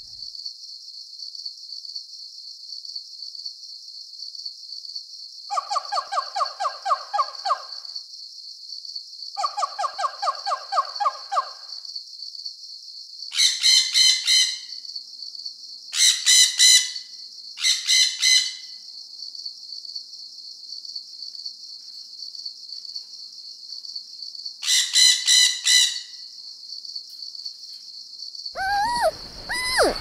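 Bird calls over a steady high-pitched insect drone. Two rapid trills come around 6 and 10 seconds in, then harsh parrot squawks in short bursts from about 13 to 19 seconds and again around 25 seconds. Different sliding, whistling calls start near the end.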